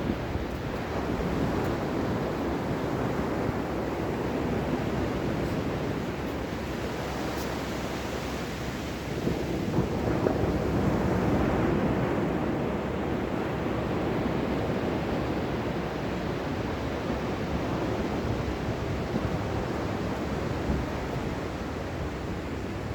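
Ocean waves breaking and washing in a steady surf, with one swell rising a little louder about ten seconds in.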